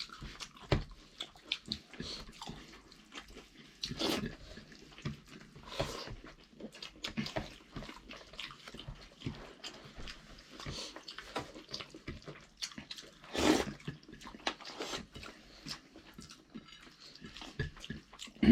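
Close-up eating sounds of a rice-and-dal meal: chewing and mouth smacks in a dense, irregular string of small clicks, with a few louder ones about four, six and thirteen and a half seconds in.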